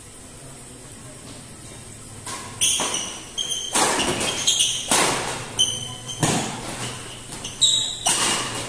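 A badminton rally: sharp racket strikes on the shuttlecock, about one a second, starting a little over two seconds in, with shoe squeaks on the court between the hits.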